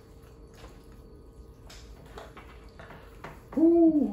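Quiet hand-eating of pounded yam and soup: a few faint soft clicks and squishes of fingers working the food on the plates. Near the end a person's voice comes in with a loud drawn-out sound.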